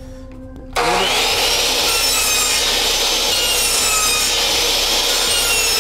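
DeWALT miter saw switched on a little under a second in, its motor and blade then running steadily at speed with a high whine that wavers in pitch, as it trims a pre-painted finger-joint pine crown molding.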